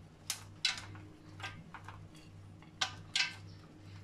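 Handfuls of chopped walnuts and chocolate chips picked from a plate by hand and scattered over cake batter in a metal pan: about five short, sharp clicks and rustles, spaced irregularly.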